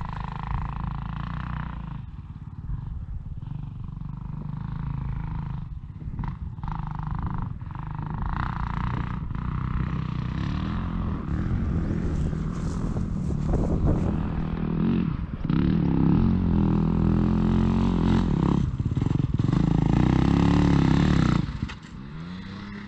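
Dirt bike engine running and revving on a trail, its pitch rising and falling with the throttle. It is loudest for several seconds before dropping off sharply near the end.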